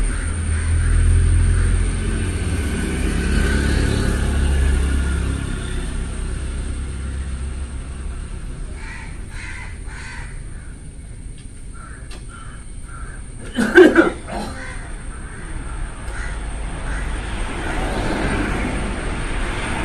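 A low engine rumble fades out about five seconds in. After it come scattered bird calls, the loudest a single call about fourteen seconds in.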